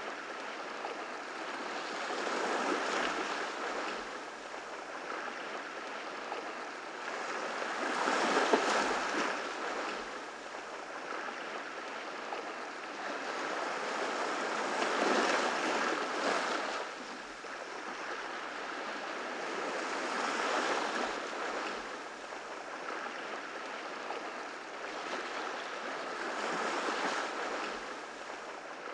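Ocean waves breaking on the shore, the surf swelling and falling back about every six seconds.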